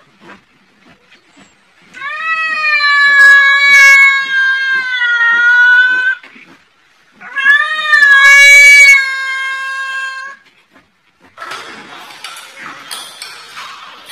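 A cat yowling at another cat in a face-off: two long, wavering, drawn-out yowls of three to four seconds each, a second apart. Near the end comes a short stretch of rustling and clattering noise.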